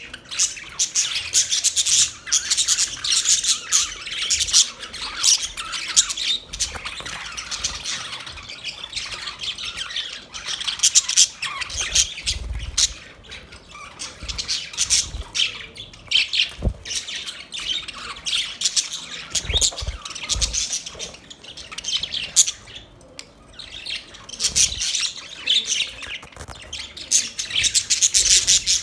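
A group of budgerigars chattering and squawking continuously in rapid, high chirps, with a few dull low thumps around the middle.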